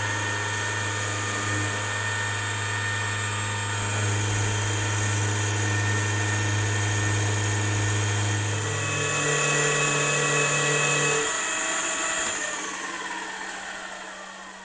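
Milling machine running with a 6 mm carbide end mill cutting the corner out of a steel clamp blank at full 10 mm depth: a steady whine with a high tone over a low hum. The pitch shifts a couple of times before the spindle winds down, the sound falling and fading over the last few seconds.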